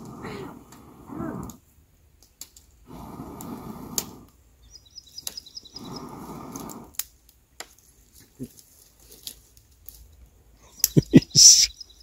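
A person blowing three long puffs, about a second each, onto smouldering tinder in a can to coax it into flame, with faint bird chirps between them. A cluster of loud sharp knocks comes near the end.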